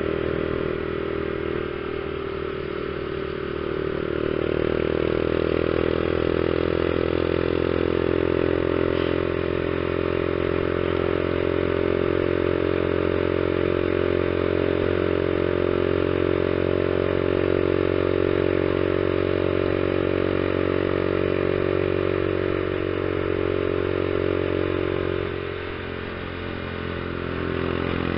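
Honda CG 150 Fan's single-cylinder four-stroke engine running steadily as the motorcycle rides along, with wind and road noise. The engine note drops briefly near the start and again near the end.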